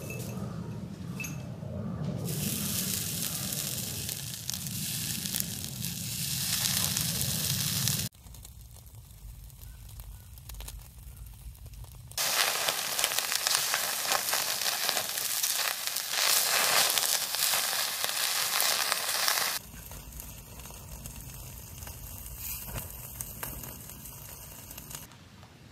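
Food sizzling as it cooks over the fire, in several spliced takes: a steady sizzle with a low hum, a quieter stretch, then a louder sizzle from about twelve to nineteen seconds in, ending in a quieter, lightly crackling stretch.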